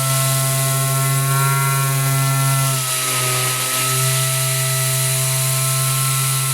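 Dual-action random-orbital sander running on a robot arm: a steady motor hum with a high hiss. The pitch sags slightly and the sound dips briefly about three seconds in, as the load on the pad changes.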